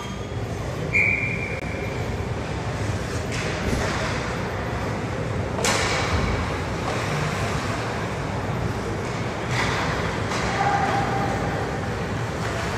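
Ice hockey play in a rink: skate blades scraping across the ice in a steady rasp, broken a few times by sharp knocks of sticks, puck or boards. A brief high tone sounds about a second in.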